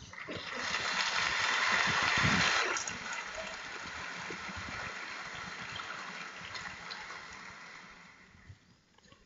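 Audience laughing and applauding, loudest in the first three seconds, then dying away near the end.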